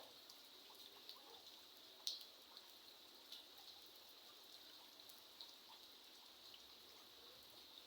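Faint, steady light rain with scattered individual drops dripping, one noticeably louder drop about two seconds in.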